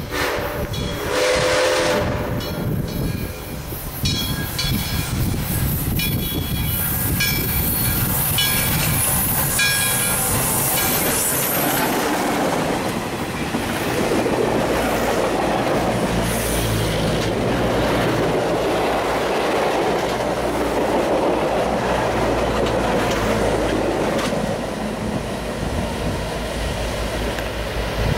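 Southern Railway #630, a 2-8-0 steam locomotive, sounds its steam whistle in the first two seconds. A ringing stroke then repeats about once a second for several seconds as it approaches. From about twelve seconds in, the locomotive and its passenger cars pass close by with a steady rumble and clatter of wheels on rail.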